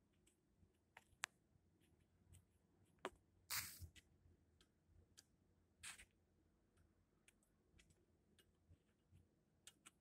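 Near silence, broken by faint scattered clicks, one sharper click about a second in, and two brief rustles a little past the middle.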